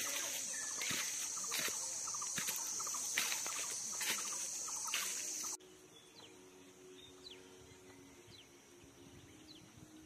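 Footsteps crunching through dry leaf litter on a forest trail, about one step a second, under a loud, steady high drone of insects. After an abrupt cut about halfway through, the sound drops much quieter, leaving faint short bird chirps.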